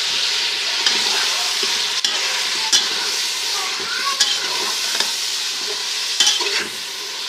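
Beef frying in ghee, sizzling steadily, while a spoon stirs it and clicks against the pot several times.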